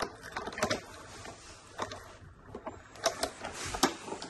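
Irregular sharp clicks and light scraping of a hand tap wrench and tap working in metal, as a thread is cut by hand.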